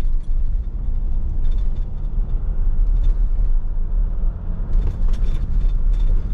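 Steady low in-cabin rumble of a 2021 Jeep Wrangler Unlimited Rubicon with its 3.0-litre EcoDiesel V6, cruising on a bumpy road: engine and tyre noise, with faint light rattles now and then.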